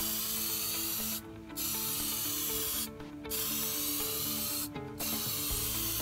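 Aerosol can spraying a clear anti-corrosion coating onto a circuit board: a hiss in about four bursts of a second or so each, with short pauses between.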